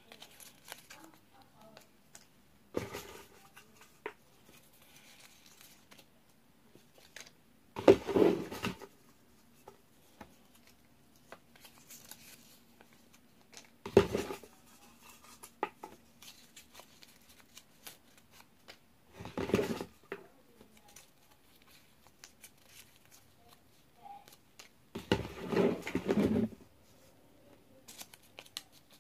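Folded paper slips rustling and crinkling in several short bursts as they are drawn out of a bucket and unfolded by hand.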